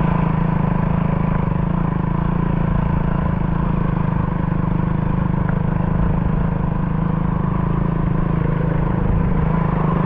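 Motorcycle engine running steadily at low speed on a rough stony dirt road, an even low hum with road and wind noise over it.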